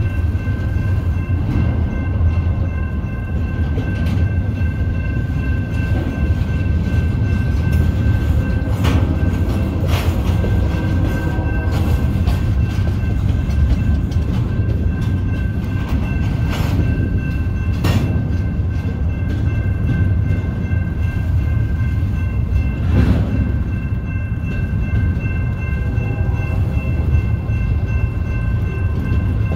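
Intermodal freight train rolling past: a steady, loud low rumble of steel wheels on rail, with a faint high ringing held over it and a few sharp clanks now and then.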